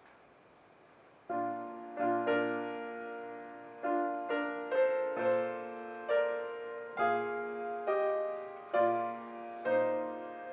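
Piano accompaniment playing slow chords, each struck and then fading, starting about a second in after faint room tone.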